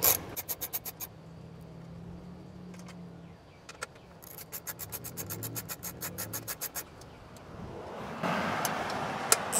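Ratchet wrench clicking in quick, even runs as the air box bolts are loosened: one short run at the start and a longer one a few seconds later. A scraping rustle of handling comes near the end.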